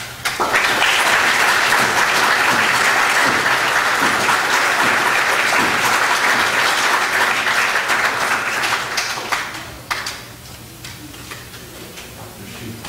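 Congregation applauding for about nine seconds, dying away around ten seconds in.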